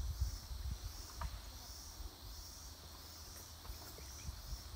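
Insect chorus, a steady high buzzing that gently swells and fades, over a low rumble.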